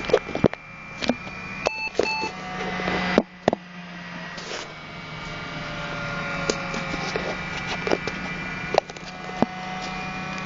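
IBM ThinkPad T40-series laptop cooling fan running noisily, the fan-noise problem these machines are known for: a whine of several steady tones over a hum, with scattered clicks. It drops out briefly about three seconds in, then builds back up and gets louder.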